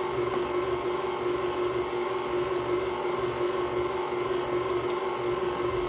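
KitchenAid stand mixer's motor running steadily, its flat paddle beating a thick cream cheese and powdered sugar icing in the steel bowl. The hum holds one even pitch throughout.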